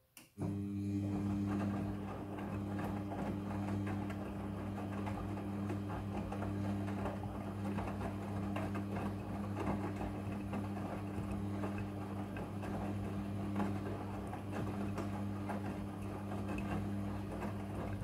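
Front-loading washing machine's drum motor running with a steady hum while the drum turns and tumbles wet laundry during the wash cycle. It starts about half a second in and stops near the end as the drum pauses.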